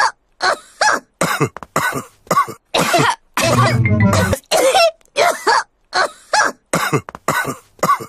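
Several cartoon voices coughing, one short cough after another with brief gaps between them.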